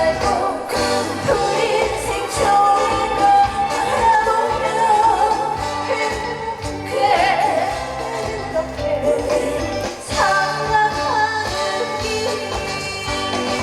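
A woman singing a trot song over backing music, with wavering vibrato on the held notes.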